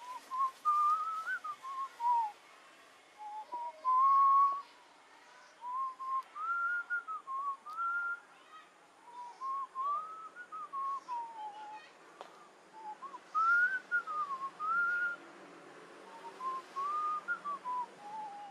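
A man whistling a tune: one clear note gliding up and down in short melodic phrases, with brief pauses between them.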